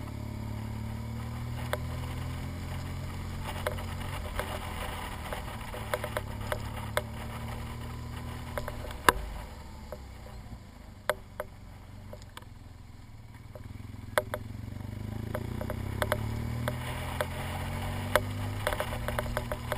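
BMW R1200GS boxer-twin engine running at low road speed, easing off about halfway through and then pulling away again with rising pitch. Sharp clicks and knocks are scattered throughout.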